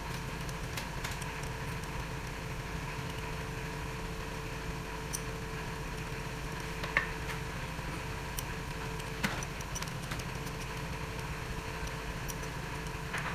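A few light metallic clicks of a socket on a long extension being set on and turned on the main bearing cap bolts of a Suzuki K6A engine block, over a steady background hum.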